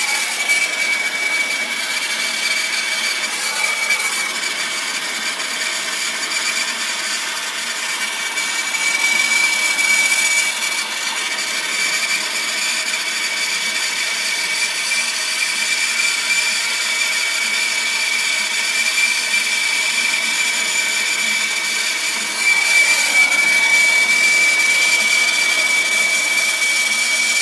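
Plumber's hand torch flame hissing steadily with a thin high whistle as it heats a copper fitting to sweat a solder joint. It gets a little louder about 22 seconds in.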